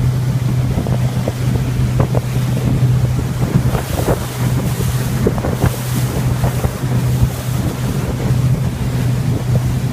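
Motorboat engine running steadily at cruising speed with a constant low hum, water rushing and slapping against the hull, and wind buffeting the microphone.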